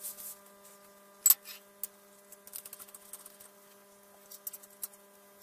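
Light metallic clicks and knocks as a cast iron vise jaw is handled on a steel angle plate, with one sharper knock about a second in. Under them runs a steady electrical hum.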